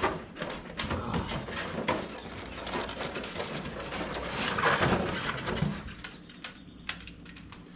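Cardboard packaging and wrapped parts being rustled and handled while unpacking a boxed table saw, with irregular clicks and knocks. The handling is loudest about five seconds in and quietens near the end.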